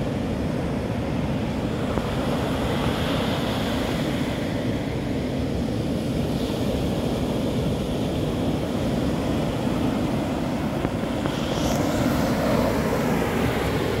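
Pacific surf breaking and washing up a sand-and-pebble beach: a steady rush with a deep rumble underneath, and a wave's wash swelling louder about three-quarters of the way through. Wind buffets the microphone.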